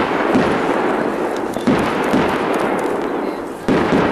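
Aerial fireworks shells bursting overhead: about five sharp bangs, unevenly spaced about half a second to a second and a half apart, each trailing off in a long echoing rumble.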